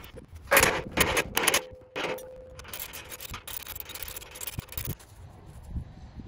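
Aluminum lattice tower sections knocking together as they are fitted at a joint, a metallic ring hanging on for about two seconds after the loudest knocks, then lighter metal rattling and scraping.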